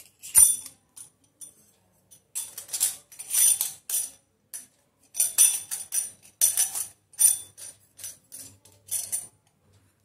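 Stainless-steel murukku press parts clinking and jingling as they are handled and fitted together. A sharp click comes about half a second in, then short, irregular bursts of bright metallic jingling.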